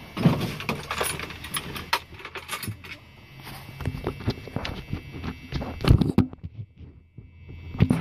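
Small metal clicks, taps and rattles from handling an ASSA Twin 6000 brass lock cylinder and its small parts as a screw is fitted, with a couple of louder knocks about six seconds in and near the end.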